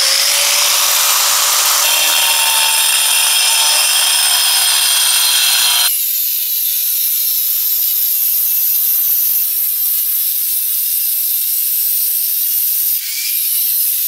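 Angle grinder with a diamond disc cutting a chase into a plaster and brick wall: a loud, continuous high-pitched grinding. Just before the start it spins up with a rising whine, and about six seconds in the lower rasp drops away abruptly, leaving a thinner high whine.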